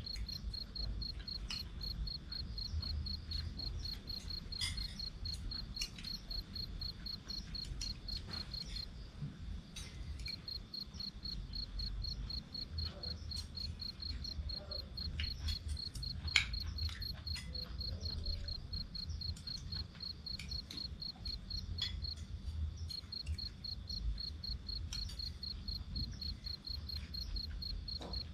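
A night-time cricket chirps in a fast, even, high-pitched pulse that breaks off briefly twice. Under it is a low rumble of strong wind, with scattered small clicks.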